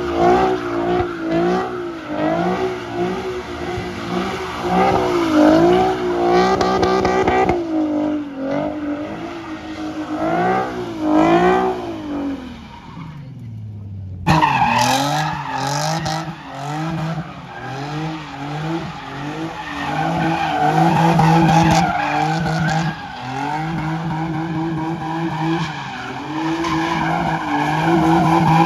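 Car tires screeching continuously, the pitch wavering up and down as cars spin donuts at a street takeover. The screech falls in pitch and breaks off briefly about 13 seconds in, then starts again.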